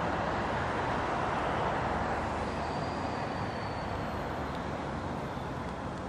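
Steady rush of road traffic noise that slowly eases off, with a faint high thin tone near the middle.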